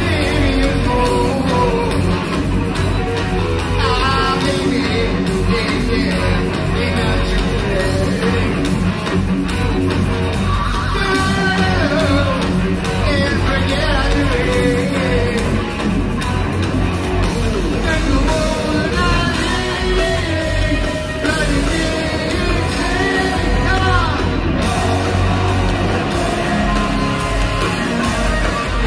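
Heavy metal band playing live: a male voice singing over electric guitar and drums.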